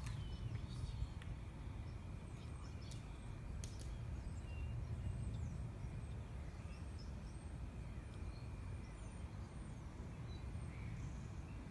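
Outdoor ambience: a steady low rumble with a few faint bird chirps scattered through it.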